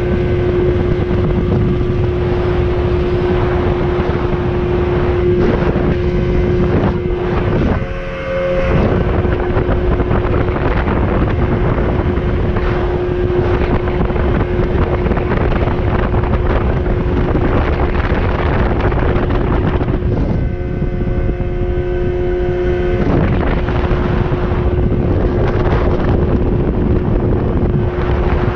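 Outboard motor of a Haines Hunter 550C boat running steadily under way, a constant droning whine, with heavy wind buffeting on the microphone. The sound dips briefly about eight seconds in, and the engine tone fades for a couple of seconds later on.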